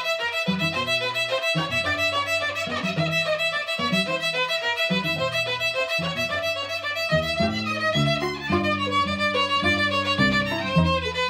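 Small string ensemble: a child on violin plays the sustained melody over a second upper string and a cello plucking a detached bass line.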